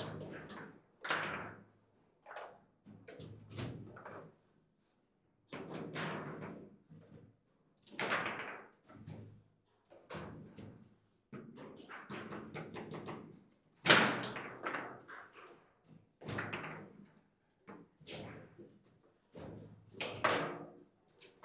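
Table football play: an irregular run of sharp knocks and thuds as the ball is struck by the player figures and knocks around the table, the loudest strike about 14 seconds in.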